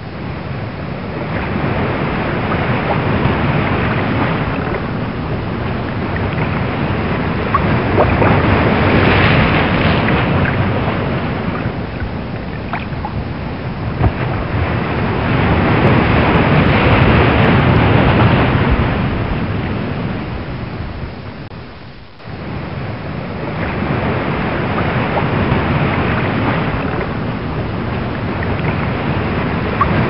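Ocean waves with wind: a continuous rushing wash that swells and ebbs in slow surges every several seconds, dropping away briefly about three-quarters of the way through.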